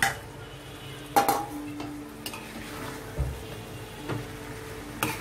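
Metal spoon knocking and scraping against a nonstick frying pan as boiled noodles are tossed into stir-fried vegetables and sauce, several sharp knocks with the loudest pair about a second in, over a low sizzle from the hot pan.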